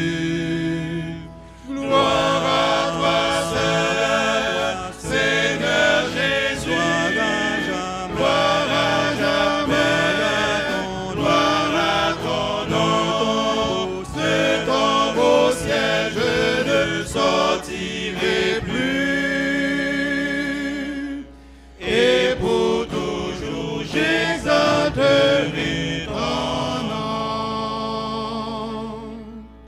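A church praise team and congregation singing a French hymn together, the sung lines broken by two short pauses.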